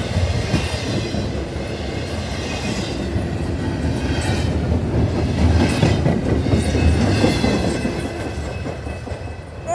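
Double-stack intermodal freight cars rolling past a grade crossing: a steady rumble with rhythmic clickety-clack of steel wheels over the rail joints. It eases off near the end as the last car goes by.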